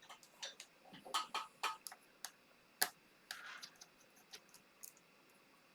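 Faint, scattered light clicks and ticks of small tools and parts as a MacBook Pro's drive is taken out, with one sharper click about halfway through.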